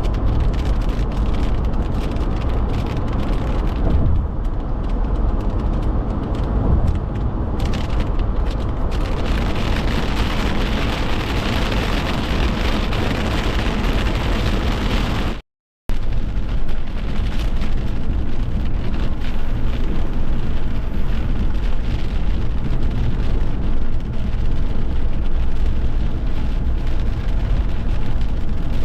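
Steady, loud noise of a rainstorm, with wind rumbling heavily on the microphone. It cuts out completely for a moment about halfway through.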